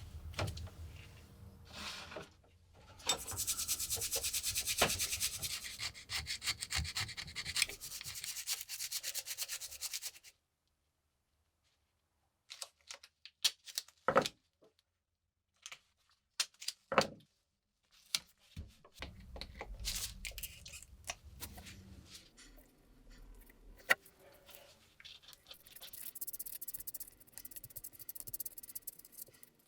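Hand sanding: fast rubbing strokes of an abrasive on small metal parts, in several spells. A few sharp clicks and knocks fall in a pause about halfway through.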